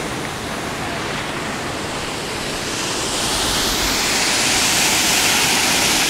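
Steady rush of a small waterfall and its stream pouring over rock, growing louder and hissier about halfway through.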